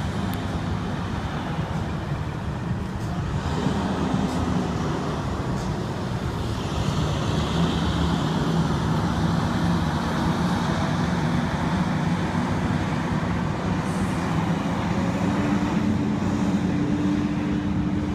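School buses pulling away and driving through an intersection, their engines running steadily amid road traffic noise. One engine's note climbs slightly near the end.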